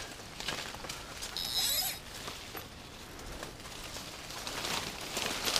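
Leaves and undergrowth rustling with scattered handling clicks as a shot fish is hauled in on the line and dragged up the bank, with a short zip-like sound about one and a half seconds in.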